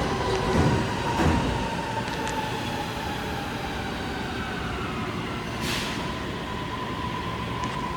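A ten-car electric commuter train pulling away from a station, with a steady electrical whine running under the rumble. There are two sharp knocks in the first second and a half, and a short hiss of air about two-thirds of the way through.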